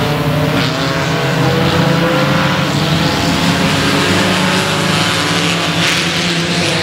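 Engines of several front-wheel-drive Ecostock dirt-track race cars running hard together as the pack races around the oval, several engine notes overlapping and drifting slightly in pitch.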